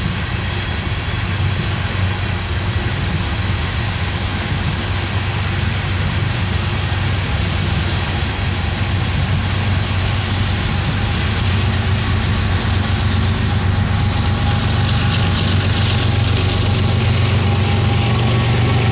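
Coal train cars rolling past with steady wheel-on-rail noise over a low diesel hum. The hum grows louder over the last few seconds as the GE diesel locomotive at the rear of the train comes by.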